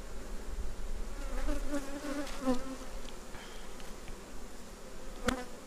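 Honey bees buzzing steadily over an open hive, with a single sharp click near the end.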